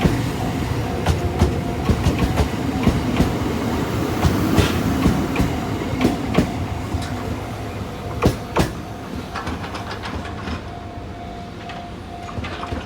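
Electric commuter train passing, its wheels clicking in a steady run over rail joints with two sharp clacks about eight seconds in. The rumble and clatter then fade as the train moves away.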